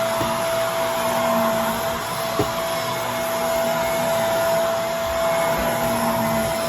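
Vacuum cleaner running steadily, its motor noise carrying a constant whine, with one sharp tick a little over two seconds in.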